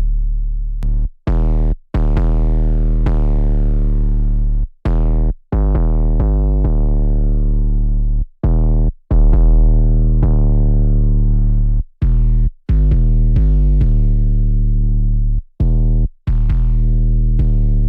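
Electronic trap instrumental playing from the producer's software: long, deep synthesized bass notes with a bright attack that fades, chopped by short silent gaps in a pattern that repeats about every three and a half seconds.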